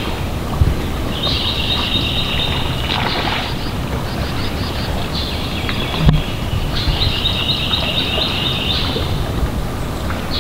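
A songbird trilling in the woods: several high, rapidly ticking trills of one to two seconds each, over a steady low rumble of wind noise. One sharp click about six seconds in.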